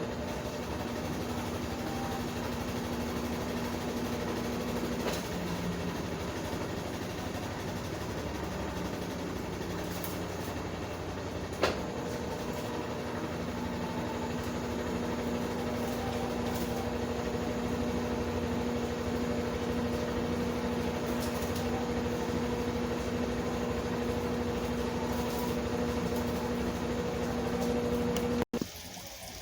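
Consul CWS 12 washing machine in its spin cycle: steady running with a motor hum, and a single sharp click about twelve seconds in. The sound cuts off suddenly near the end.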